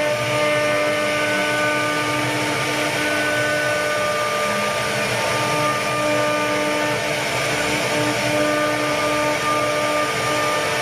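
CNC router spindle carving wood: a steady high whine over the cutting noise, its tones coming and going as the bit's load changes.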